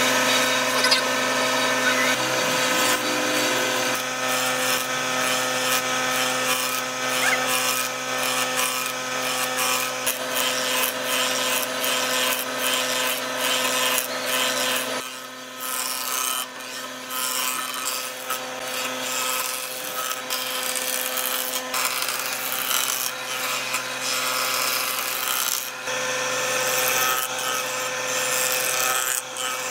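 An electric power tool running steadily against wood: a constant motor hum under rough, scratchy abrading noise. About halfway through it changes abruptly, dipping and then carrying on.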